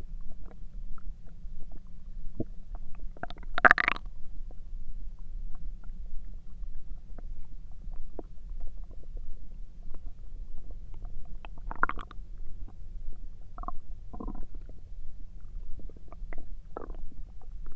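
Human stomach rumbling and gurgling: a steady low rumble with short gurgles, the loudest about four seconds in, another near twelve seconds, and a few smaller ones after.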